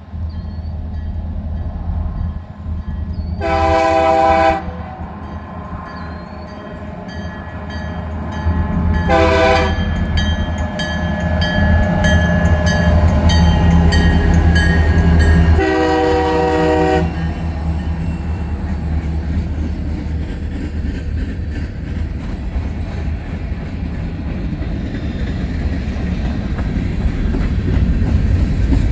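Diesel freight locomotive sounding its air horn three times (a long blast, a short one, then a long one) as it approaches and passes with its engine rumbling. Its train of freight cars then rolls by with a steady rumble and clatter of wheels on the rails.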